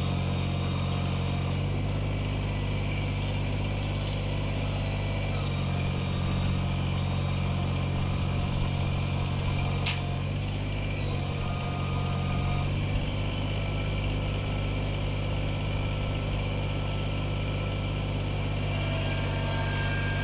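Kubota BX25D compact tractor's three-cylinder diesel engine running at idle, its note shifting a few times, with one sharp click about halfway through.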